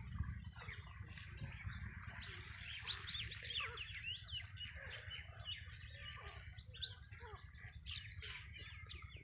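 Many short, overlapping bird calls and squawks from a flock, coming thicker from about three seconds in, over a steady low rumble.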